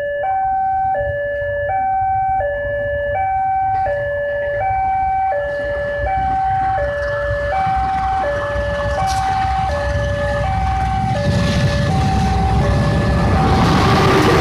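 Two-tone warning alarm, a lower and a higher note taking turns about twice a second, over the steady low rumble of a diesel engine. Near the end the alarm fades as the engine noise grows louder.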